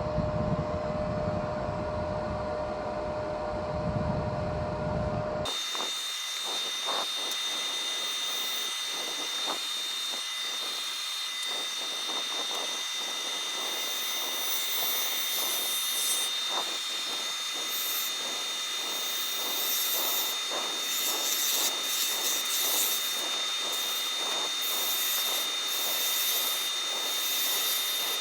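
Wood lathe running with a steady high whine while a turning tool cuts the spinning wood in many short scraping strokes. For the first five seconds there is a low rumble with a steady hum instead, which then changes to the brighter hiss of cutting.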